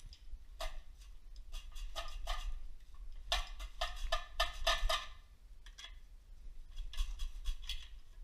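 Irregular metallic clinks and knocks, in clusters and densest around the middle, as a pry bar works a stuck torque converter loose from the engine's crankshaft.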